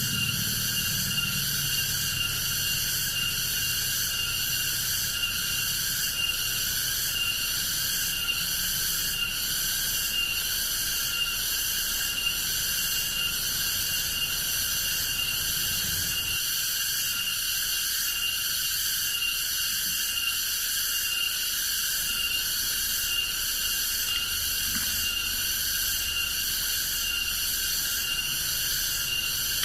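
Forest insect chorus: a steady, shrill, many-voiced drone with a fast, even pulse.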